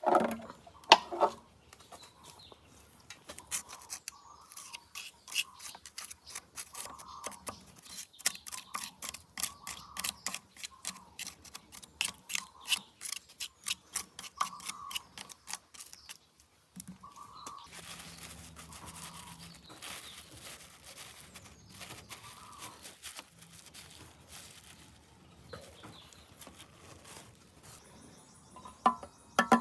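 Quick repeated brushing strokes, about four a second, through the middle of the stretch, with a few knocks at the start and end. Birds call in the background.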